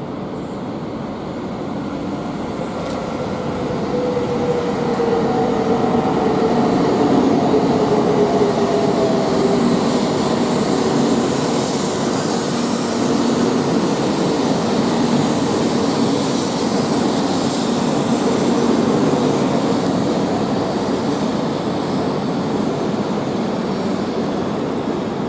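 E2 series Shinkansen pulling into the platform and slowing to a stop: a steady rush of wheels and running gear, with a whine that falls slowly in pitch as it brakes. It grows louder over the first several seconds and then holds.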